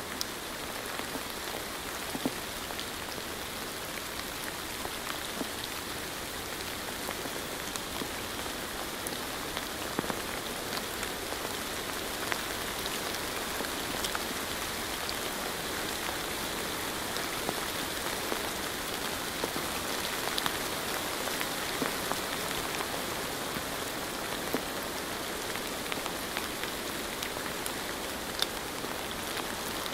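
Steady rain falling, with scattered individual drop ticks over an even hiss.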